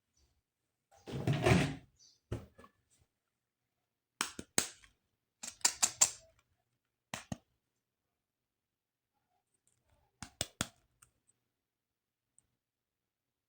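Plastic toy parts being handled. There is a short rustling knock about a second in, then scattered sharp plastic clicks and snaps in small groups.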